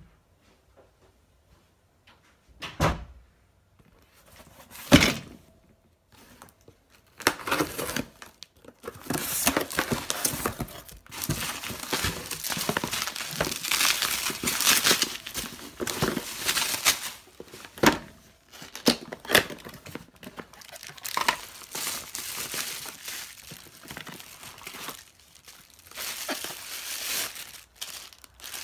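Bubble wrap, plastic bags and tissue paper crinkling and rustling as they are unwrapped and handled, from about seven seconds in. Before that, two short knocks, the second one louder.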